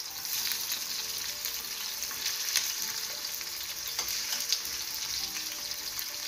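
Chicken strips frying in hot sunflower and olive oil in a pan, a steady sizzle with crackling as more strips are dropped in. A few sharp clicks stand out around the middle.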